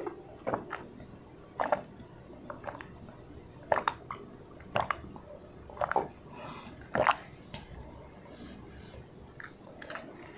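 Close-miked gulps and swallows of water from a drinking glass, about six in a row one to two seconds apart, with small wet mouth sounds between them.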